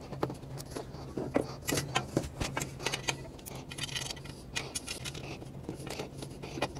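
Irregular small clicks, scrapes and rattles of thin metal dresser frame pieces being handled and fitted at a joint while a screw is turned in by hand, over a steady low hum.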